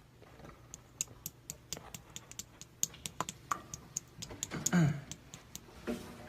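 Yellow slime being squeezed and pressed by hand: a quick run of sharp clicks and crackles from small air pockets popping, with a short squelch just before five seconds in and another near the end.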